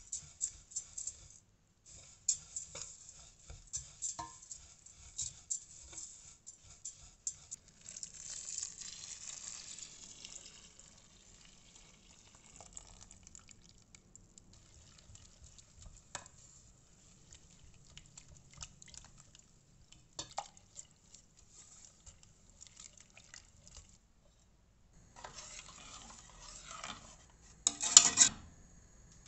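A metal spoon stirring dry rolled oats and ground spices in a stainless steel pot, with quick scrapes and clinks against the metal. About eight seconds in, liquid is poured in with a soft splashing hiss. Near the end, the spoon stirs the wet oat mixture and scrapes loudly against the pot.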